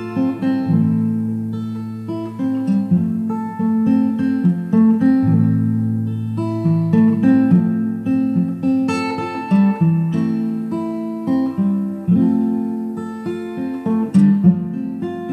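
Background music: acoustic guitar plucked and strummed, with picked note attacks throughout.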